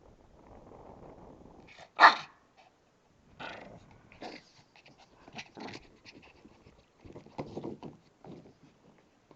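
Pet dog making noise: a low, rough sound for about a second and a half, then one loud, sharp sound about two seconds in, followed by scattered shorter, quieter sounds.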